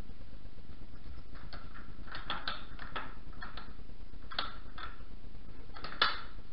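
Clicks and rattles of a metal sliding barrel bolt on a wooden stable door as it is worked, ending about six seconds in with one sharp metallic click, the loudest, as the bolt goes home.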